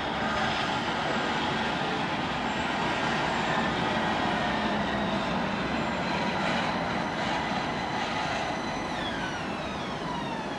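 AnsaldoBreda Sirio tram running into a station and braking to a stop, with a whine from its electric drive that falls in pitch over the last two seconds as it slows.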